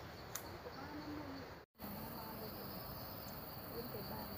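Steady high-pitched drone of insects in the forest, with faint voices in the background. The sound drops out completely for an instant about a second and a half in.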